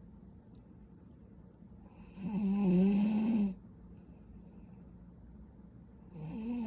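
A sleeping woman snoring: one pitched snore about two seconds in, lasting just over a second, and the next one starting near the end.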